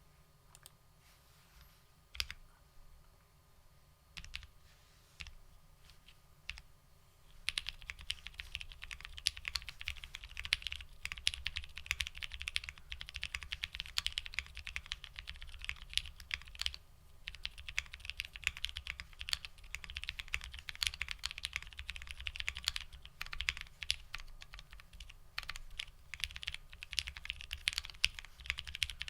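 Custom Bakeneko60 mechanical keyboard with linear frankenswitches (Moyu Black stems, Hyperglide Black housings, Gateron KS-3 springs), GMK keycaps and an FR4 plate, being typed on. A few scattered keystrokes come first, then steady fast typing from about seven seconds in.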